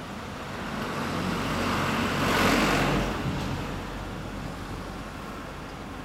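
A road vehicle passing by on the street, swelling to its loudest about two and a half seconds in and then fading, over a steady low engine hum.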